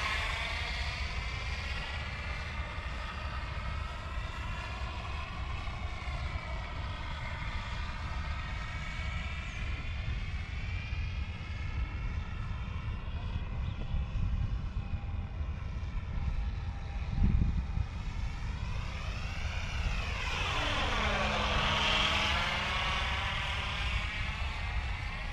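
Radio-controlled model airplane's motor and propeller whining as it flies overhead, the pitch sliding up and down as it passes and changes throttle, with a deep dip and climb near the end. A steady low rumble of wind on the microphone sits underneath, with one short thump about two-thirds of the way through.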